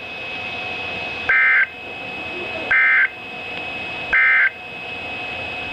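Emergency Alert System end-of-message data tones from a NOAA Weather Radio broadcast: three short two-tone warbling bursts about a second and a half apart, marking the end of the alert. A steady faint whine and hiss of the radio lies between the bursts.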